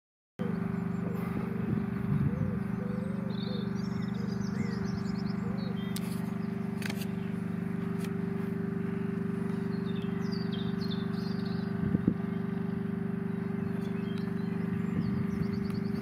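Steady low machine hum of an unseen running engine or motor, with small birds chirping now and then and a few faint clicks.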